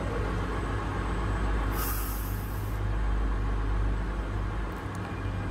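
Steady engine-room machinery hum. About two seconds in, a high hiss of compressed air lasts about a second as the exhaust valve air spring is vented through its drain valve.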